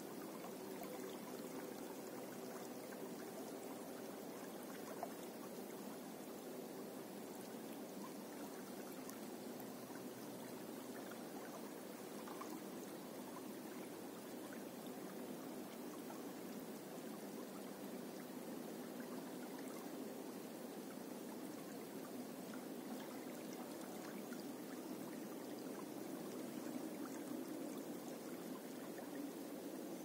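A small river flowing, its water splashing steadily around snags in the current.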